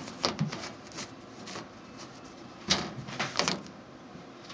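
Irregular sharp clicks and knocks, in two clusters: several in the first second and a half, then a louder run about three seconds in.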